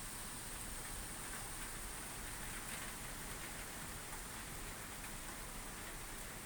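Steady, heavy rain falling: an even hiss of drops without let-up.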